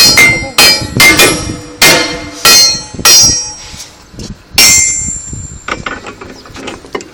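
Hammer blows ringing on metal: six sharp strikes about half a second apart, a pause, another strike about four and a half seconds in, then a few lighter taps near the end.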